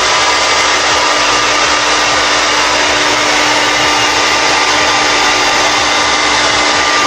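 Handheld hair dryer blowing steadily, a rush of air over a constant motor hum, aimed at the hairline to dry freshly applied lace wig glue.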